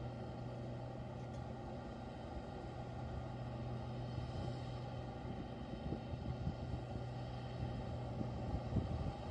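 Large rotary snow blower truck's engine running steadily under load: a steady drone with a low hum, with a few low thumps near the end.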